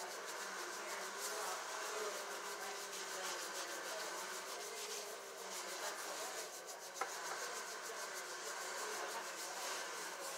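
Fingers scrubbing shampoo lather through hair and over the scalp close to the microphone: a steady rubbing sound made of quick, repeated strokes. A single short click about seven seconds in.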